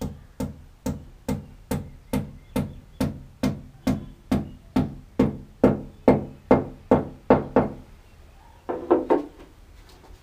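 Hammer driving a plug into a hole drilled in a plastered masonry wall: about twenty steady, evenly spaced blows, a little over two a second, growing louder as they go. Near the end comes a quick run of about five knocks.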